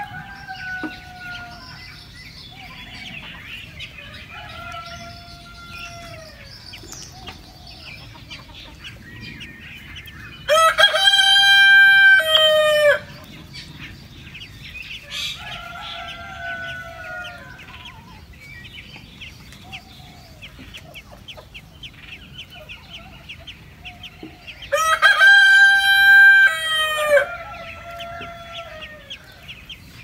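A rooster crows twice, about ten seconds and twenty-five seconds in, each crow long and ending in a falling tail. Between the crows there are softer falling calls and faint high chirping.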